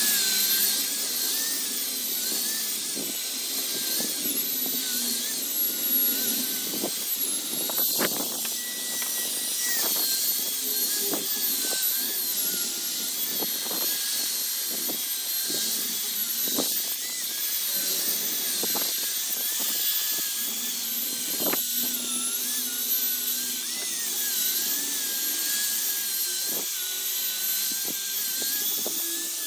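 Electric power sander running on old wood: a steady hissing, high whine whose pitch wavers as the tool is pressed and moved, with scattered light knocks.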